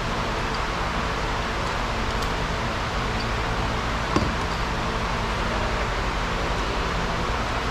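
Steady rushing background noise with a faint low hum, like a running fan or ventilation, and one sharp click about four seconds in.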